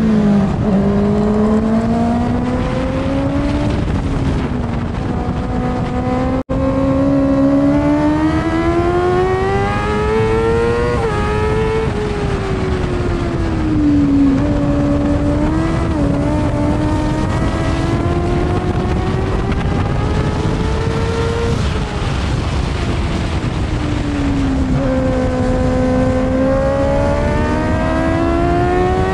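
Formula 2 racing sidecar outfit's engine heard onboard at racing speed, its pitch climbing as it accelerates and falling as it slows for corners, with a quick shift about eleven seconds in. The engine sits over constant wind rush on the microphone, and the sound drops out for an instant about six seconds in.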